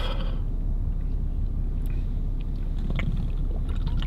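Steady low rumble inside a car cabin, with a couple of faint short clicks from handling a drink can about two and three seconds in.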